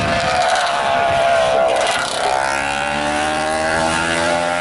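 Historic racing motorcycle engines: one runs hard past with its engine note falling away, and about halfway through another engine note comes in lower and climbs steadily as that bike accelerates.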